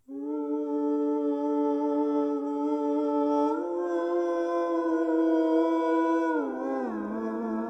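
Opening of a synth-pop song: a sustained, humming-like held chord that steps up in pitch about three and a half seconds in, then slides down a little after six seconds.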